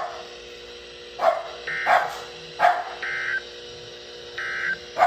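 A dog barking a few short, sharp single barks at uneven intervals, over a steady low hum. Three brief high-pitched tones sound between the barks.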